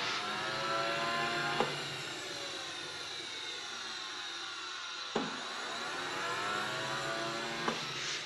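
Simjet 3000 model jet turbine spinning down in its post-shutdown cool-down cycle, still hot: a whir that glides up and down in pitch as the electric starter spins the rotor to blow air through it, with a sharp click every few seconds.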